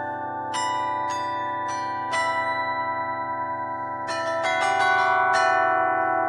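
Russian flat bells (Zhikharev flat bells) struck in a slow melody, each stroke ringing on so the tones overlap. Four strokes come about half a second apart, the notes are left to ring, then a quicker run of strokes starts about four seconds in.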